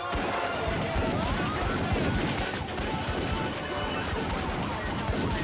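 Background music with a fast, heavy beat, over a police siren wailing up and down.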